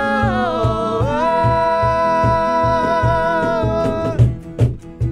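Live band music: a woman sings long held notes over strummed acoustic guitar and electric guitar with a steady beat. Near the end the voice drops out and the guitars play short, choppy strums.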